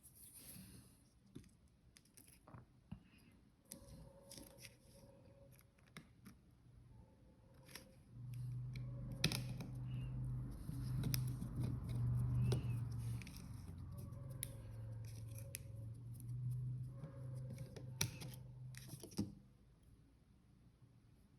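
Scattered sharp clicks and light scraping, joined for about eleven seconds in the middle by a steady low hum.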